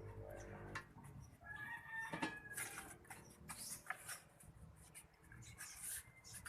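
Bird calls: a short pitched call about two seconds in, among scattered high chirps and clicks. A low hum stops about a second in.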